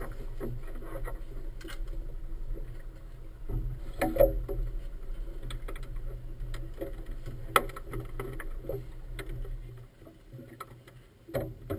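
Motorboat engine idling steadily at the dock, with occasional knocks and clicks of lines and fittings; the engine cuts off about ten seconds in.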